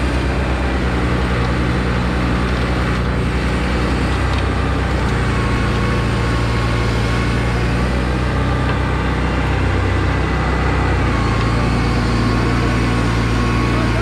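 Sumitomo HA60C asphalt paver's diesel engine running steadily while laying asphalt, a loud even engine note that dips briefly in pitch about ten seconds in.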